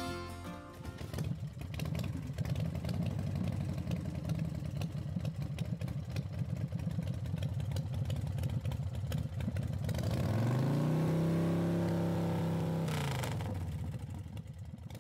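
An engine running with a rapid, even pulse, then revving up about ten seconds in, holding there for a couple of seconds and easing back down as the sound fades near the end.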